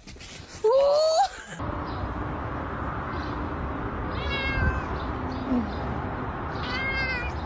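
A ginger cat meowing twice, a couple of seconds apart, over a steady hiss of outdoor noise. Before that, about a second in, a loud rising cry lasts about half a second and cuts off suddenly.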